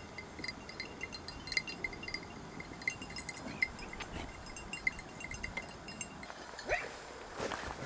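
Small bells on hunting hounds' collars jingling faintly and irregularly as the dogs move through the scrub. A short rising call comes near the end.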